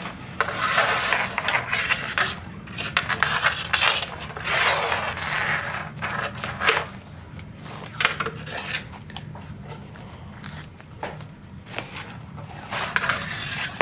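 Hooked soft steel wire being worked inside a hollow molded carbon sailplane wing panel to fish out a servo wire: irregular scraping, rattling and small knocks, busier in the first half and again near the end, over a low steady hum.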